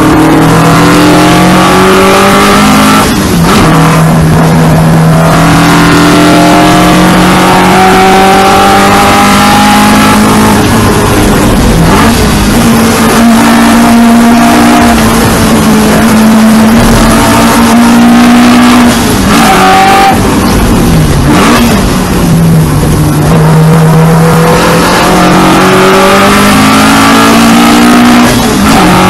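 Onboard sound of a historic saloon racing car's two-litre four-cylinder engine driven hard on a lap. The revs climb and drop repeatedly through several gearchanges, and it comes off the throttle for corners, over loud wind and road noise.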